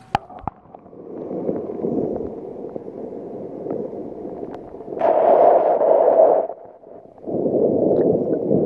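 Muffled underwater sound of lake water sloshing and rushing around a camera microphone held below the surface. A few sharp clicks come as it goes under, and the water noise swells louder twice in the second half.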